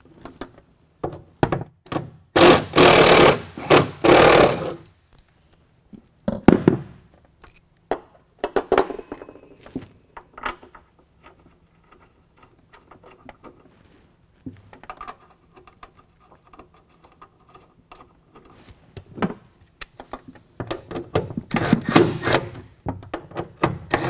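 Electric driver with a T30 Torx bit running in short bursts, backing out and driving in a truck bed tie-down cleat's bolts: a few runs near the start and again near the end. Small clicks and clinks of the bolts and cleat being handled come in between.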